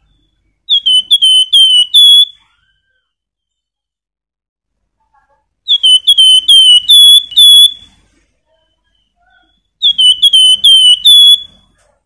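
Caged Javan fulvetta (wergan jawa, kept as a 'flamboyan' songbird) singing: three loud phrases, each of five or six quick, clear whistled notes, a few seconds apart.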